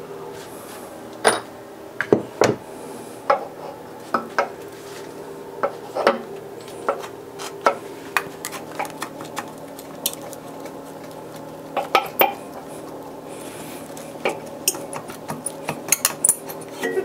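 Scattered metallic clinks and knocks of hand tools and loose bolts against a Honda R18 engine's aluminium cylinder head as a water-passage housing is unbolted and pulled off, over a steady low hum.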